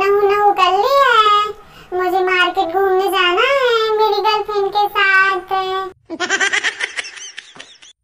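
A voice singing long drawn-out notes, with two smooth swoops up and back down in pitch. It breaks off about six seconds in into a short burst of giggling laughter.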